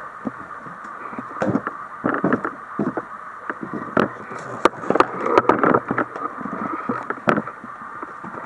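Footsteps crunching and scuffing over debris and grit on a floor, with irregular crackles and a few sharp clicks.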